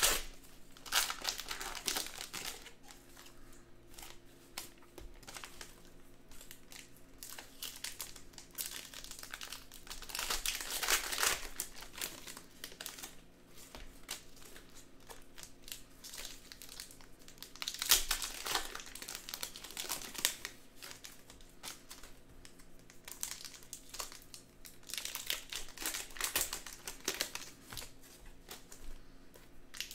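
Plastic wrappers of trading card packs and boxes being torn open and crinkled, in irregular bursts of crackling with short lulls between, over a faint steady hum.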